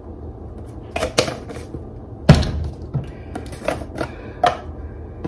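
Metal spoon tapping and scraping against a steel cooking pot and plastic spice jars while spice powder is spooned onto raw chicken, with plastic jar handling: a series of scattered clicks and taps, with one sharp knock about two seconds in.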